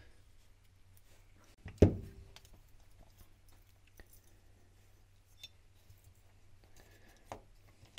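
The metal motor can of a disassembled Shurflo 12 V pump set down on a workbench: one sharp knock about two seconds in that rings briefly. A few faint clicks follow as the plastic brush end cap is handled.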